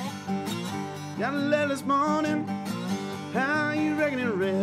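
Background music: acoustic country-blues guitar, with two phrases of gliding, bending notes over steady held tones.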